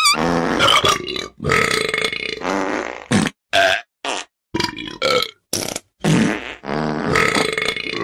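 Comic text-message ringtone: a rapid string of short burp-like noises, each cut off abruptly, with a wavering whistle tone at the start.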